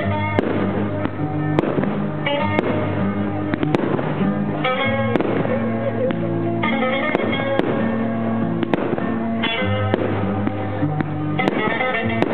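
Fireworks going off in a pyromusical display: sharp bangs about once a second over the music that accompanies the show.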